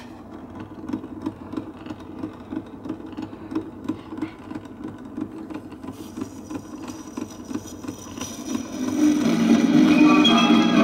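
Turntable of a 1950s Truetone portable record player running, a rhythmic mechanical ticking over a low rumble, with a click as it is switched on. About eight and a half seconds in, after the tonearm is lowered onto the record, music from the record starts playing through the player and becomes the loudest sound.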